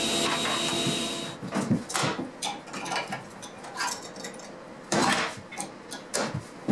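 A sliding table saw runs steadily, then stops abruptly about a second in. After that come scattered metal clanks and clicks, loudest about two seconds in and about five seconds in, as the riving knife is unfastened and lifted off beside the stationary blade.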